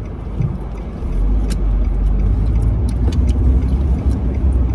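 Car interior noise while driving: a low engine and tyre rumble that grows louder about a second in, with a few light clicks and rattles.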